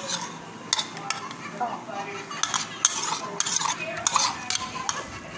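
Spoon clinking and scraping against a plate while scooping up rice, in an irregular run of sharp clicks and scrapes.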